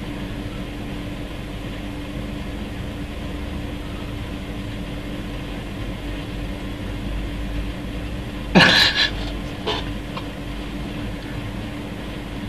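Steady machine hum of a room, like a computer or fan. About eight and a half seconds in, one sudden loud sound sweeps up in pitch, and a fainter short one follows a second later.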